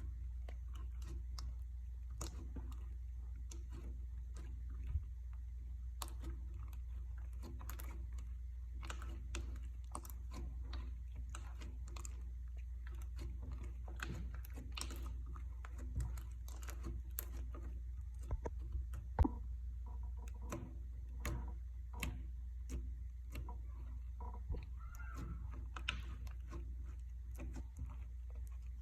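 Clear slime being mixed by hand with makeup: irregular small sticky clicks and pops, the sharpest about nineteen seconds in, over a steady low hum.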